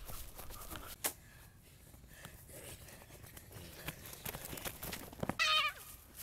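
Quick footsteps and rustling through grass and brush as children run, with a sharp click about a second in. Near the end comes one short, high-pitched cry with a wavering pitch, the loudest sound here.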